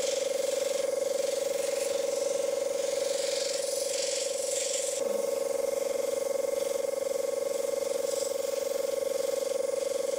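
Small airbrush compressor running with a steady hum, with the hiss of air and paint spraying through the airbrush; the hiss eases about halfway through while the hum goes on.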